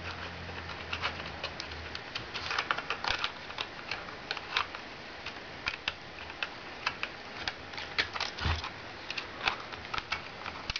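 Irregular light clicks and taps of plastic parts and wires being handled and pressed into place inside a Nao robot's plastic head, with a duller knock a little past eight seconds in.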